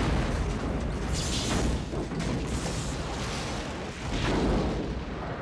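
Film sound effects of explosions aboard a starship: a continuous low rumble broken by sudden blasts and crackle, loudest about a second in and again about four seconds in.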